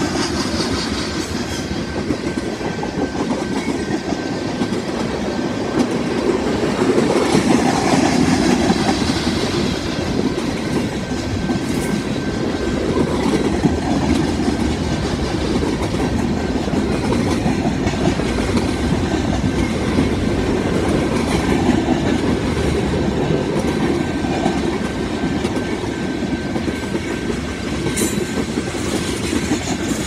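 Cars of a mixed freight train (boxcars, hoppers and tank cars) rolling past at a crossing: a steady rumble of steel wheels on the rails.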